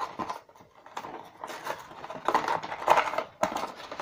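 Small cardboard accessory box being opened and its contents handled by hand: rustling with light clicks and taps, busier in the second half.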